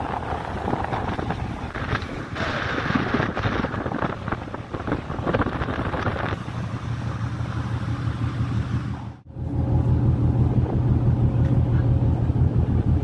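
Wind buffeting the microphone on a container ship's open bridge wing, over a low steady hum. The hum grows louder after a sudden cut about nine seconds in.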